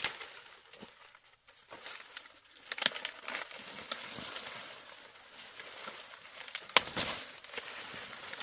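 Rustling and crinkling from dry material being handled, with scattered sharp clicks, the loudest near the end.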